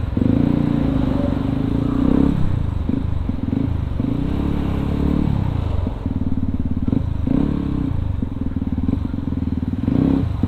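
Yamaha WR155R's single-cylinder engine through an aftermarket racing exhaust, ridden at low speed with the throttle opened and closed again and again, so the engine note rises and falls.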